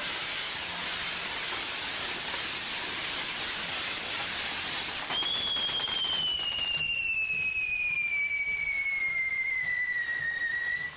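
Fireworks on a castillo tower burning with a steady hissing rush of spraying sparks. About five seconds in a whistling firework starts up, one loud high whistle that slowly falls in pitch and is the loudest thing heard.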